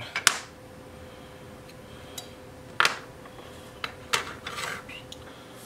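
AA batteries being pulled out of the metal spring clips on a small circuit board and set down: about five separate metallic clicks and clinks, one followed by a short scrape.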